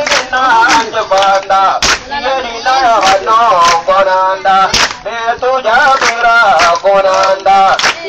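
A man's voice singing and chanting through a megaphone in a wavering, melodic line, with a few sharp knocks cutting through, the loudest about two and five seconds in.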